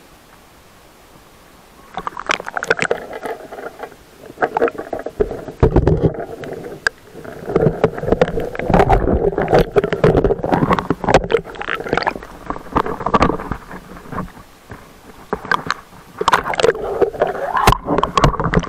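Water sloshing and splashing around a camera held at the waterline as a diver paddles and wades through shallow water, the camera dipping under at times. It starts about two seconds in, goes on irregularly with knocks, and has heavy thumps near six seconds and near the end.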